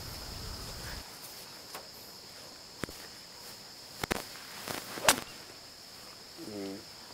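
Steady high-pitched chirring of insects, with a few sharp clicks; the loudest, about five seconds in, is a golf club striking the ball.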